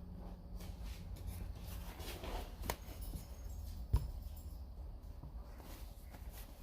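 Faint scratching of a paintbrush working oil paint on canvas over a low steady hum, with two small taps, the louder one about four seconds in.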